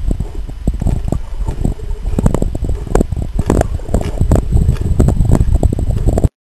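Handling noise on a waterproof camera: a heavy low rumble with many irregular knocks, cutting off suddenly near the end.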